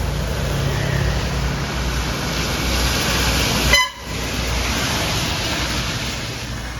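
Heavy vehicle passing on a busy highway, a steady rush of engine and tyre noise. Just past halfway comes a very short horn toot, then the sound drops out abruptly for a moment before the traffic noise returns.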